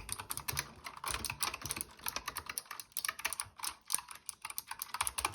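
Fast typing on a Razer Huntsman Mini 60% mechanical keyboard with optical switches: a quick run of key clicks with a couple of short pauses in the middle.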